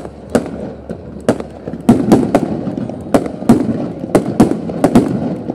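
Aerial fireworks shells bursting in quick, uneven succession: about a dozen sharp bangs, roughly two a second, over a continuous low rumble from the display.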